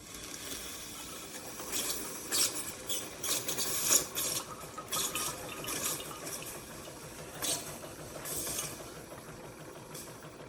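Amazon Basics single-serve K-Cup coffee maker brewing, hissing and sputtering in irregular bursts as water is pushed through the pod.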